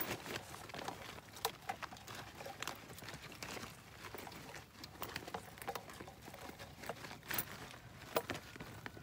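Irregular light taps, knocks and rustling from a fish trap's netting being handled as fish and crabs are worked out of it, with a few sharper knocks along the way.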